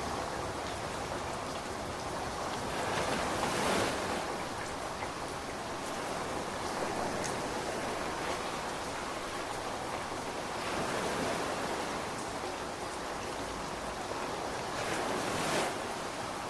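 Ocean waves surging and washing in over a steady rain hiss, with swells of surf about three seconds in, around the middle, and again near the end.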